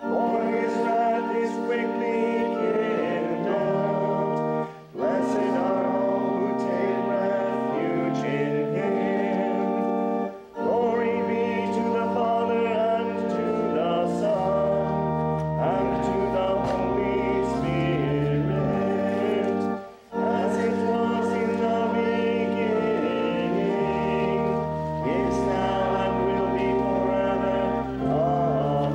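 Congregation singing a chanted portion of the Lutheran liturgy with organ accompaniment, held notes over a steady bass, in phrases separated by short breaks about every five to ten seconds.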